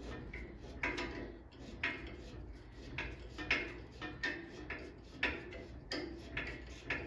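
Flathead screwdriver threading a steel adjusting screw into a car's spare-tire carrier latch. There are light, irregular metallic clicks and ticks, about two a second, as the blade turns and is re-gripped.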